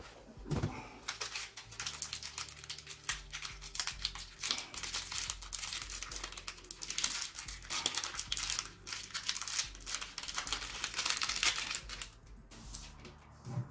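Thin plastic packaging crinkling and rustling as a new power cable is handled and unwrapped from its bag, in irregular scratchy bursts with short pauses.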